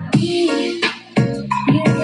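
Electronic remix music with a strong, sharply punctuated beat.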